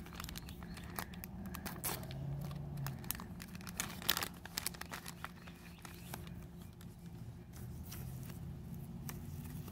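Foil packaging pouch crinkling and tearing as it is opened by hand, then the rustle of its thin foam wrapper being unfolded, in irregular crackles and clicks.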